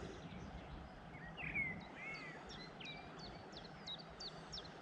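Faint wild birdsong: a few slurred, curving calls about a second and a half in, then a quick run of short, high chirps, about four a second, over a soft steady hiss.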